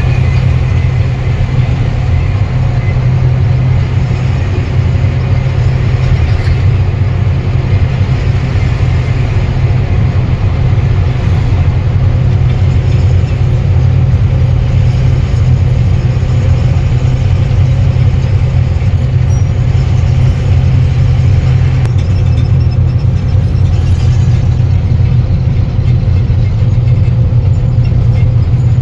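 Truck engine running steadily with a loud, even low drone and road noise while the truck drives along.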